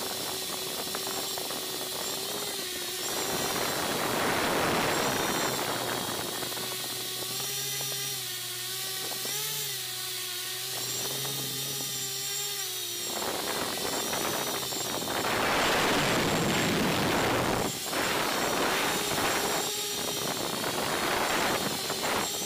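MJX Bugs 3 quadcopter's brushless motors and propellers whining in flight, heard close up from the onboard camera, the pitch wavering as the throttle changes. Rushing wind noise swells about four seconds in and again from about fifteen to seventeen seconds.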